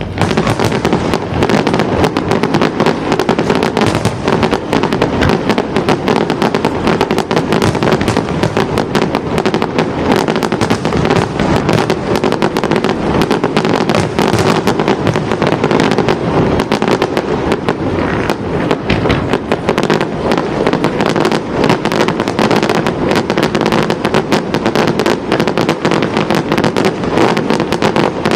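Fireworks display going off in a loud, dense, continuous barrage of rapid bangs and crackles, with no let-up.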